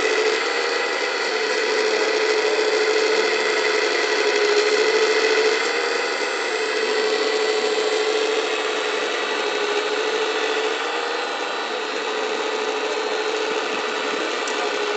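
Electric-driven hydraulic pump of a 1:14.5 Wedico CAT 345 D radio-controlled excavator whining steadily, its tone shifting slightly in level a few times as the boom and bucket dig and dump.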